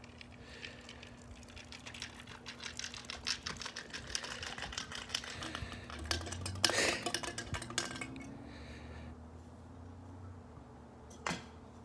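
Coke being poured out of a bottle, fizzing and splattering as it runs out, with a louder gush about six and a half seconds in.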